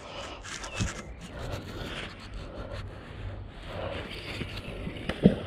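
Magnet-fishing rope scraping and rubbing through a gloved hand as the magnet is swung out, then one sharp plop about five seconds in as the magnet hits the canal water.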